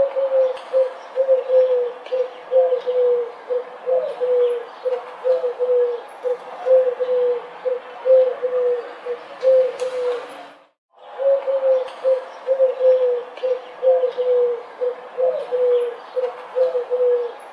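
Pigeons cooing: a steady run of short, low coos, about three a second, broken by a brief silence about eleven seconds in.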